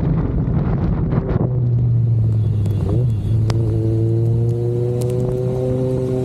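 Kawasaki Z900's inline-four engine and exhaust running: a rough rumble for about the first second and a half, then settling into a steady drone held at one pitch.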